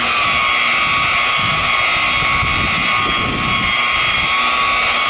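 DeWalt rotary buffer running steadily with a high whine, its foam pad polishing compound into car paint in the second, finishing stage.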